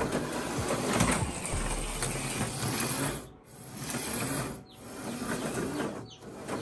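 HO-scale slot car running laps on a plastic track, its small electric motor whirring. The sound swells as the car passes close and drops away three times, about every second and a half.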